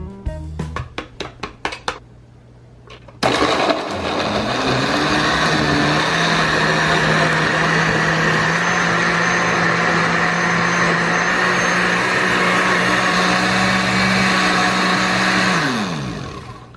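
A blender switches on about three seconds in and spins up, runs steadily for about twelve seconds while mixing eggs, then winds down as it is switched off.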